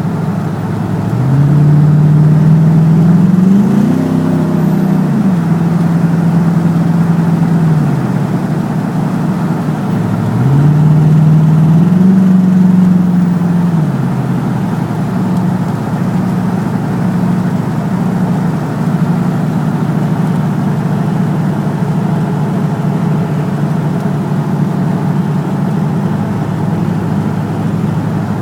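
Ford F-150 engine idling and revved up twice, each rise held a few seconds before dropping back to an uneven idle. The truck has a misfire.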